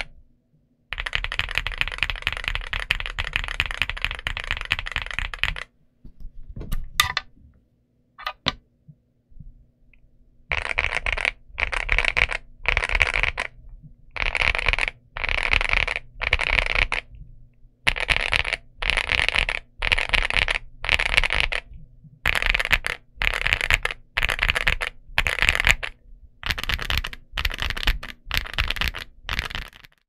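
Leobog Hi75 mechanical keyboard with Nimbus linear switches and MDA-profile PBT keycaps being typed on. Steady typing runs for about five seconds, followed by a few lone keystrokes. From about ten seconds in, fast typing comes in short bursts about a second long, with brief pauses between them.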